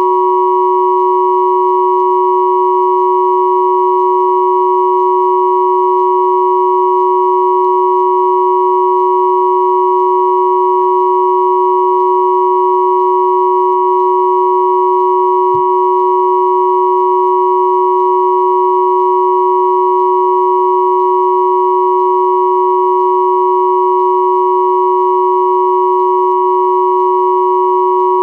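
Three pure sine tones of 369, 963 and 1111 Hz sounding together as one steady, unchanging electronic hum.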